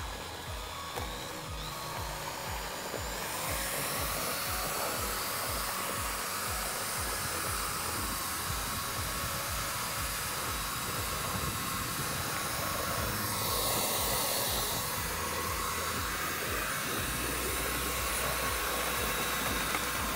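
Corded drill with a paddle mixer running at high speed in a plastic bucket, mixing cement resurfacer powder into liquid polymer as the powder is poured in. It is a steady whirring that grows fuller and louder about three seconds in.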